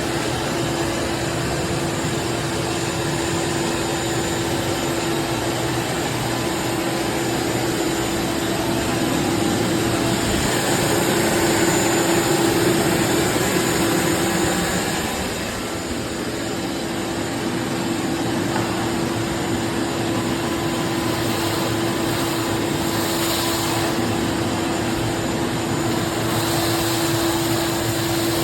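Craftsman CMXEVBE17595 16-gallon wet/dry shop vacuum running steadily, a continuous motor noise with a steady hum. It swells a little about ten seconds in and dips briefly at about fifteen seconds.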